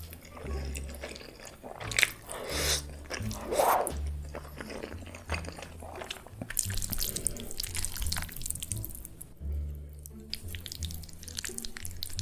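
Wet chewing and slurping of noodles close to the microphone, with many short smacks and crackles, over background music with a low bass line.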